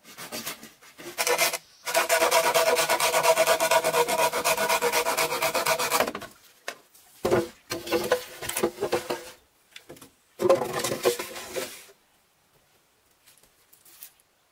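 Green bamboo poles scraping and rubbing against each other as they are dragged and laid side by side: a long rasping scrape of about four seconds, then two shorter bouts of scraping and knocking.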